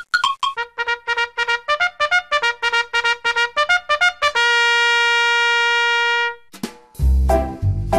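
Intro music: a run of quick, short notes that ends in one long held note, then a new tune with a strong bass beat starts about seven seconds in.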